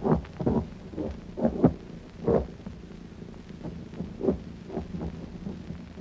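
Anti-aircraft gunfire, a quick irregular run of booming shots and bursts, heaviest in the first two and a half seconds and then thinning to fainter thuds, over a low steady drone.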